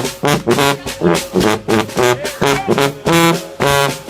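Trombone-led gospel shout band playing a fast, rhythmic figure of short, repeated brass notes, several to the second.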